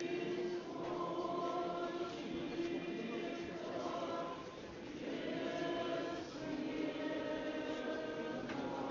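Choir singing Russian Orthodox liturgical chant without instruments, in long held chords, with a short break between phrases about four and a half seconds in.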